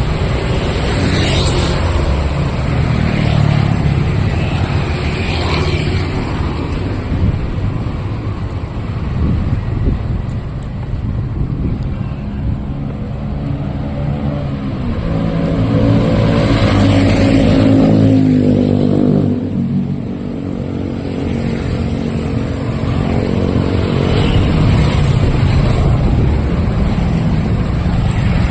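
Street traffic with motor vehicles running past. One engine passes close from about halfway through, its pitch shifting before it fades.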